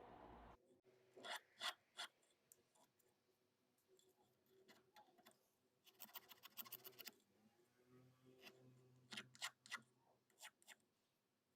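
Faint scraping and clicking of small jeweller's hand tools working sterling silver chain links: a few separate strokes near the start, a quick run of rapid strokes about six seconds in, and a few more near the end.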